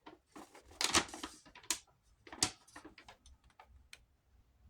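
Shipping packaging being opened and handled: a run of irregular crinkles and sharp clicks, busiest in the first half and thinning to a few scattered ticks near the end.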